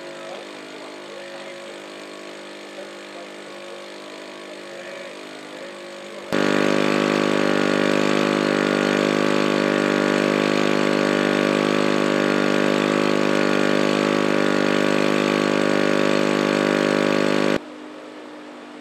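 Diesel locomotive engine idling steadily. About six seconds in it jumps abruptly to a much louder, steady level, then drops back just as suddenly about a second before the end.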